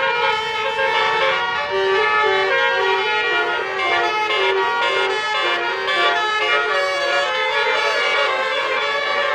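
A bus's basuri horn, the Indonesian 'telolet' multi-tone air horn, playing a melody: sustained reedy notes that step up and down in pitch without a break.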